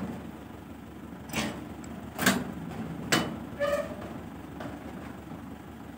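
Metal clanks from the latch bar on a box truck's rear cargo doors as they are secured shut: three sharp knocks about a second apart, the middle one loudest, over a low steady rumble.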